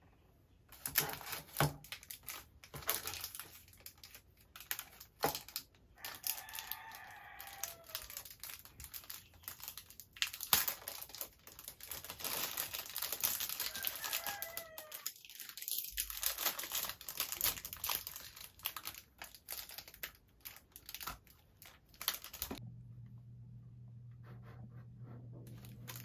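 Irregular crinkling and rustling of handled material, broken by sharp clicks, with a few brief squeaky pitched sounds in the middle. A steady low hum comes in near the end.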